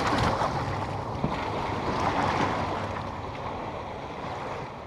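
A steady rush of wind and lapping water with a few light knocks, fading out toward the end.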